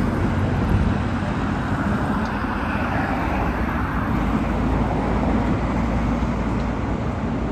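Bentley Continental GT engine running at low speed in city traffic, heard within a steady low rumble of road traffic noise.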